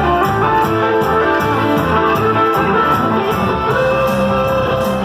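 Instrumental music with a guitar melody over a steady percussion beat.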